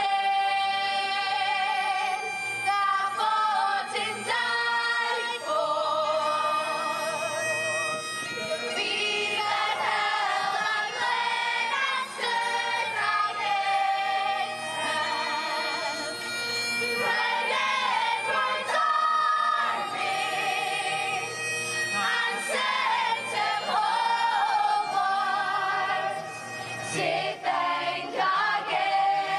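A group of young voices singing together in chorus with musical accompaniment, the singing dipping briefly near the end.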